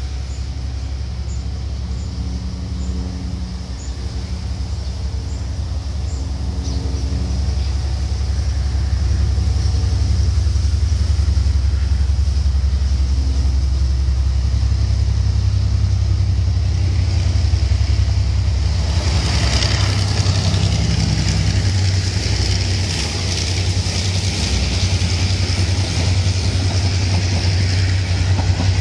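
Taiwan Railways R153 diesel-electric locomotive approaching, its engine drone growing steadily louder. From about two-thirds of the way through, the rumble and rail noise of the wagons and coaches rolling past takes over.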